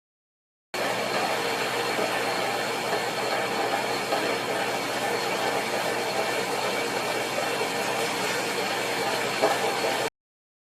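Electric meat grinder running with a steady whirring noise and a faint high steady tone; it starts abruptly about a second in and cuts off suddenly near the end.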